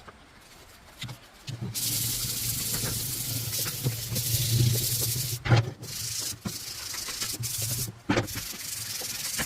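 Wood being sanded: a steady rasping hiss with a low hum underneath, broken by a few brief pauses and knocks.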